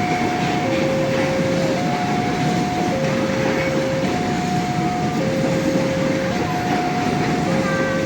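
Indonesian railway level-crossing warning alarm sounding its two-tone signal, a higher and a lower tone alternating about once a second, over the steady noise of a passing train.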